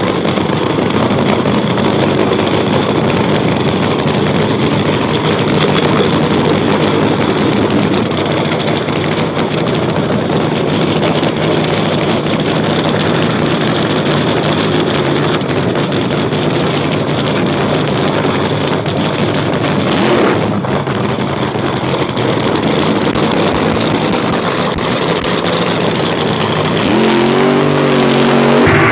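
Top fuel funny car's supercharged, nitro-burning V8 running loud and steady with open exhaust, briefly surging once about two-thirds of the way through and rising in pitch near the end.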